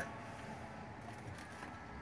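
Low, steady background hiss of room tone, with a few faint small clicks about a second and a half in from hands handling the garden wind spinner's cotter pin and washers.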